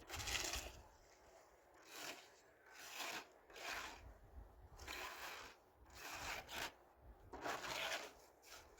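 Repeated scraping strokes, each about half a second long, coming roughly once a second.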